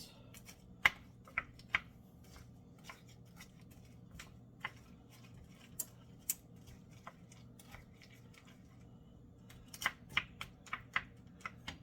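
Scattered light clicks and taps of kitchen items being handled, a few at a time near the start and a quick cluster near the end, over a faint low hum.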